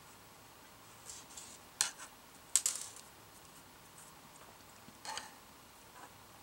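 A few light clicks and clinks of thin metal knitting needles and beads being handled, the sharpest about two and a half seconds in.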